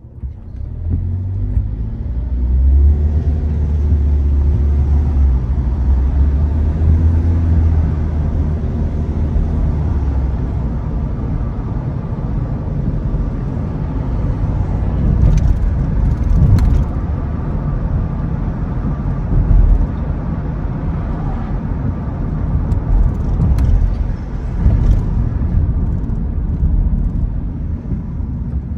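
Car driving, heard from the car itself: a low engine and road rumble swells about a second in as it pulls away, with the engine pitch rising over the next several seconds, then settles into steady running with a few short clicks.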